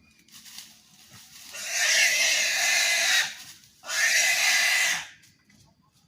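Wild pig caught in a hunting net, squealing: two long, loud screams, the second starting about a second after the first ends.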